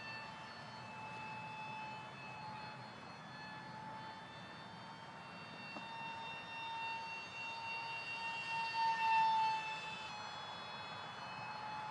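Brushless electric ducted fan of an E-flite UMX Habu micro RC jet in flight, a steady high whine that gets louder about nine seconds in as it passes, then settles slightly lower in pitch.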